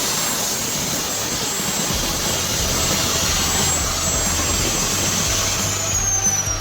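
Abrasive cut-off saw (chop saw) running with a steady high whine over a loud hissing noise; near the end the whine starts to fall as the motor winds down.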